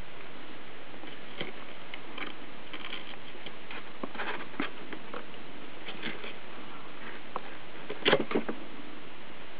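Kittens scuffling and wrestling on a blanket in a cardboard box: scattered soft rustles, scratches and light taps over a steady hiss, with a louder cluster of knocks about eight seconds in.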